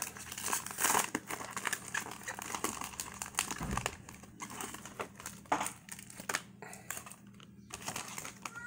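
Foil wrapper of a 2014 Leaf Draft football card pack crinkling as it is handled and worked open and the cards are slid out. The crackling is dense at first and grows sparser after about four seconds.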